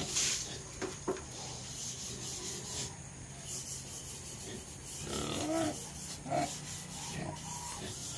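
Native pigs in a pen: rustling and scraping, with short pig grunts about five and six seconds in, over a steady low hum.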